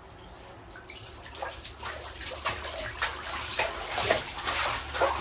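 Bathwater splashing and sloshing as a Shiba Inu dog paddles in a tub, with irregular splashes that start about a second and a half in and grow louder toward the end.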